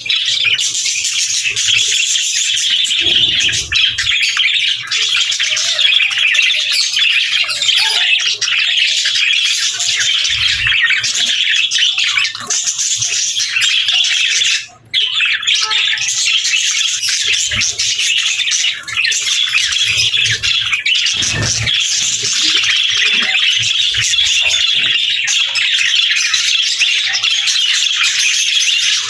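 Budgerigars chirping and chattering in a dense, continuous chorus of many overlapping high calls, broken by a brief gap about halfway through.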